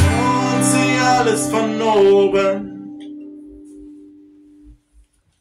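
Acoustic guitar's final strummed chord ringing out and fading away over about four seconds, with a man singing a last drawn-out line over it that ends a little under three seconds in.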